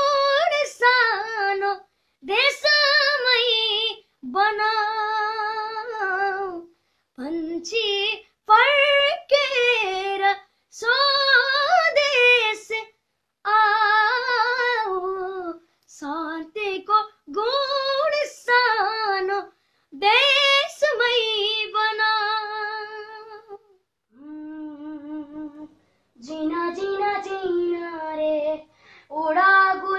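A boy singing solo without accompaniment, in held phrases with wavering notes and short breaks between them. One quieter phrase comes near the end.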